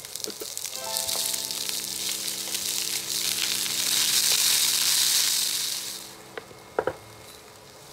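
Tomatoes and red chillies sizzling in hot oil in a frying pan as they are stir-fried with a wooden spatula. The sizzle builds, is loudest about four to five seconds in, then dies down at about six seconds, followed by two short knocks.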